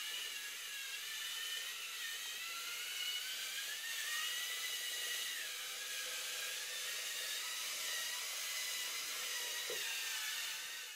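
LEGO Mindstorms NXT servo motors whining as the small robot drives along, a steady high whine that drifts up and down in pitch as the motors change speed.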